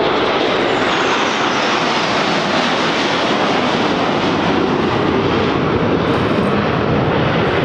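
Steady, loud jet engine noise from a six-ship formation of F-16 Fighting Falcon fighter jets flying past.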